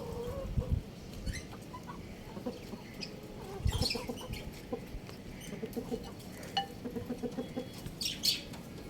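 Chickens clucking: runs of short, quick clucks, about five or six a second, in the second half, with a few sharp clicks in between.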